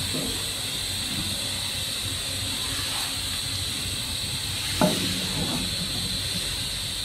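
Steady hum and hiss of factory machinery. About five seconds in comes one short, sharp sound whose pitch drops quickly.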